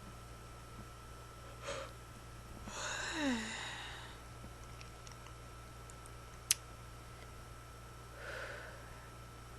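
A person yawning: a quick breath in, then a long yawn about three seconds in that ends with the voice sliding down in pitch, and a breath out near the end. A single sharp click comes midway.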